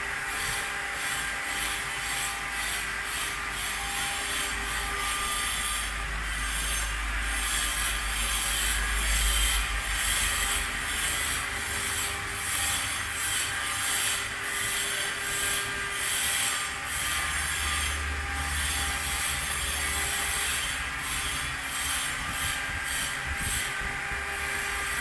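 CNC stone engraving machine cutting stone: a steady spindle whine with a gritty scraping that comes and goes in irregular spurts, over a low rumble that swells at times.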